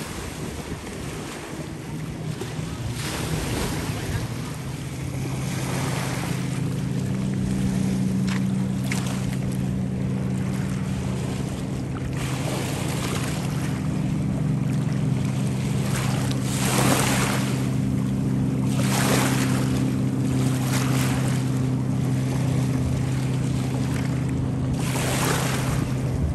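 A motorboat engine makes a steady low hum that comes in a few seconds in and holds. Over it, water laps and wind gusts on the microphone several times.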